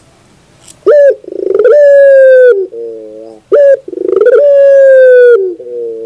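Barbary dove (puter) cooing twice, starting about a second in. Each phrase is a short clipped note, then a long drawn-out coo, then a lower rolling purr.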